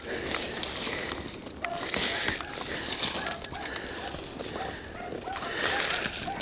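Beagles giving tongue in the distance on a rabbit trail: a run of short, quick yelps about two or three a second, starting about a second and a half in, over rustling brush and wind.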